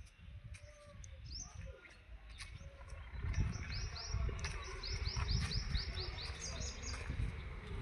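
A small bird chirping: a quick run of short, high, falling chirps, about four a second, beginning about halfway through, over a low rumbling noise.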